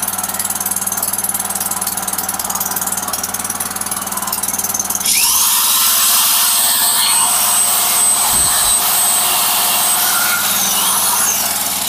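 Small 3 HP Honda petrol engine of a portable generator running steadily under load. About five seconds in, an electric drill powered by the generator is switched on and runs with a high whirring whine, dying away near the end.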